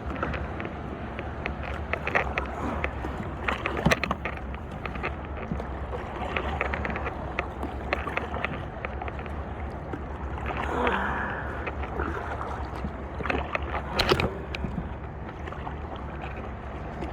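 Kayak paddle strokes: water sloshing and gurgling around the blades and hull, with a few sharp knocks, the loudest about four seconds in and near the end, over a steady low rumble.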